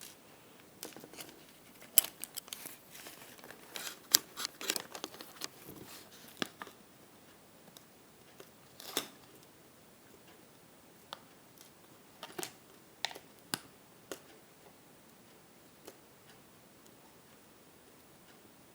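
Scattered small clicks, taps and light crinkling from handling resistors and multimeter test probes while measuring resistance. Busy for the first six seconds or so, then only a few isolated clicks.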